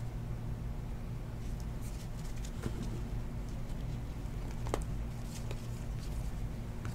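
A stack of trading cards being flipped through by hand: faint sliding and a few soft card flicks over a low steady hum.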